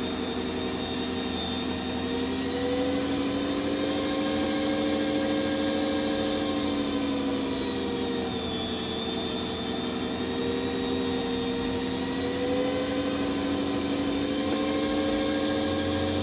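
Electric meat slicer running, its motor whirring steadily while the spinning circular blade slices a slab of smoked bacon; the hum's pitch wavers slightly a few times as the meat is pushed through.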